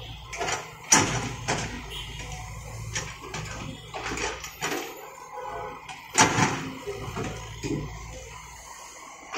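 Caterpillar E120 hydraulic excavator digging: its diesel engine drones low under a series of irregular metal clanks and knocks from the working boom and bucket. The loudest knocks come about a second in and just after six seconds.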